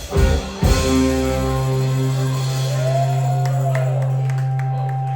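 Live rock band playing the last accented hits of a song with drums, then holding the closing chord: a steady bass note under sustained keys and guitar, with one high note sliding up and back down over it.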